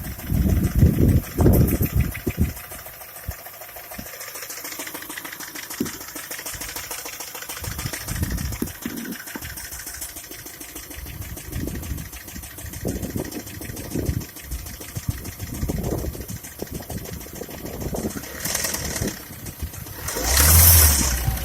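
Škoda Octavia A5's 1.6 MPI four-cylinder petrol engine running with a repetitive knock whose cause the owner does not know. There are louder bursts of engine noise in the first couple of seconds, and a short loud burst near the end.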